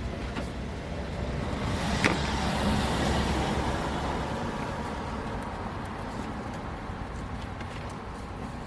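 BMW Z4's M54 straight-six engine running steadily, with a sharp click about two seconds in.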